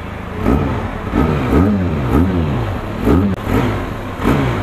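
Benelli TRK 502's 500cc parallel-twin engine being revved in quick blips of the throttle, its pitch rising and falling about twice a second. It climbs steadily again near the end.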